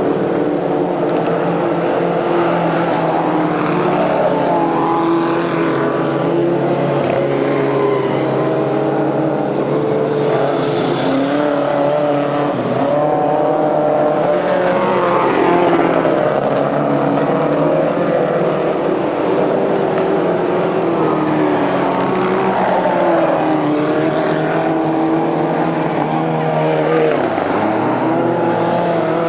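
Vintage speedway midget car's engine running hard as the car laps a dirt track, its note rising and falling through the laps.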